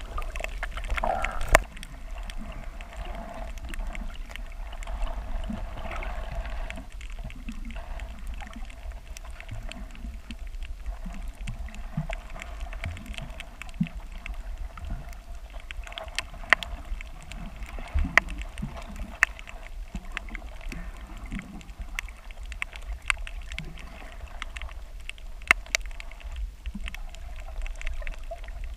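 Underwater ambience picked up by a submerged camera among seagrass: a muffled low rumble of moving water with a steady faint hum, and scattered sharp clicks and ticks throughout.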